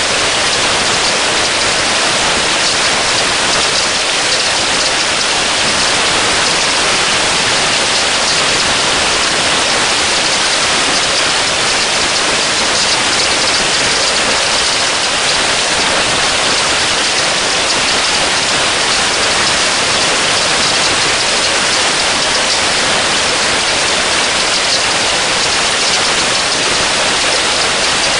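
Heavy rain pouring down onto a pond's surface: a loud, steady hiss that never lets up.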